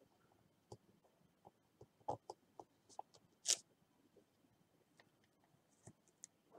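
Faint clicks and taps of a rubber stamp on a stamp block being pressed onto card and handled on a craft table, with a short, louder rustle about three and a half seconds in.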